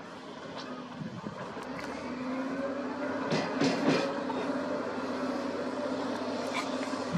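Wheel loader's diesel engine running steadily under load as it drives forward, growing louder over the first few seconds, with a short cluster of metallic clanks a little past the middle.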